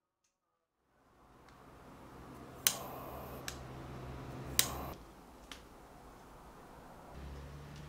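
Butane torch lighter lighting a candle: a sharp ignition click, the flame running with a steady hiss for about two seconds, a second sharp click, then the flame shut off.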